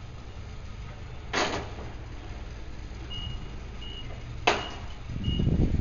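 Nissan forklift engine running steadily, with two sharp knocks. From about three seconds in, its reverse alarm beeps about once every 0.7 seconds, and the engine gets louder near the end.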